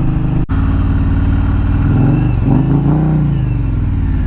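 Indian Challenger's big liquid-cooled V-twin running steadily at road speed, heard from the rider's seat; around two to three seconds in, the engine note rises and then falls again.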